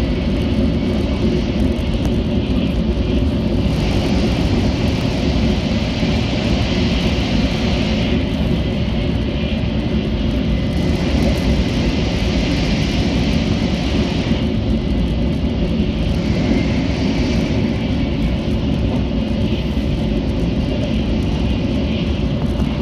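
Shinkansen bullet train running at speed, heard from inside the passenger cabin: a steady low rumble and rush of running noise, with a hissier upper layer that comes and goes every few seconds.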